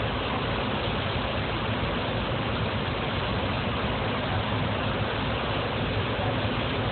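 Hydrolift C-31 powerboat's engine running steadily at speed, a low drone under a steady rushing hiss of churning wake water and wind.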